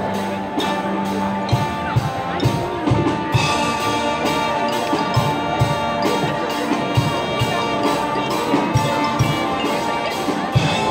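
High school marching band playing: brass sections holding chords over a steady beat from the drumline, the brass getting brighter about three seconds in.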